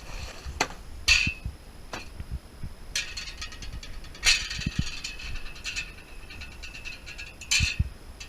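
Clicks, clanks and rattling of a Logosol log holder's metal parts being handled and set up, with a denser clatter about three to five seconds in.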